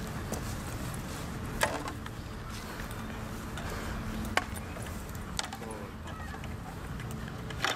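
A few short, sharp metallic clicks and clinks of harness fittings and buckles being handled on a trotting horse's harness, spread a second or more apart. A steady background noise runs underneath.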